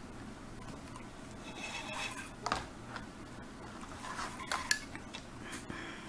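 Nylon paracord rubbing and sliding against itself as it is pulled through and tightened into knots, with a few short clicks and scrapes of handling.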